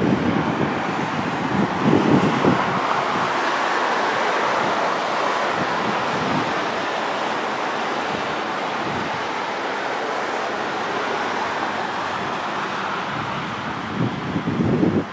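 Steady rushing outdoor noise, with low buffets of wind on the microphone at the start, about two seconds in, and again near the end.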